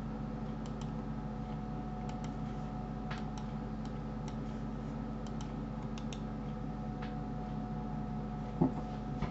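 Irregular single and double clicks of a computer mouse button, about a dozen in all, over a steady low hum.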